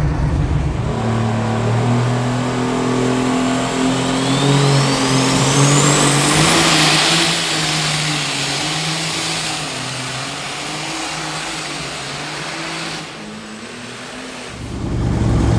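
Pulling tractor's engine running hard under load during a tractor pull hook, with a high whistle climbing in pitch from about four seconds in, typical of a turbocharger spooling up. The engine drops off near the end.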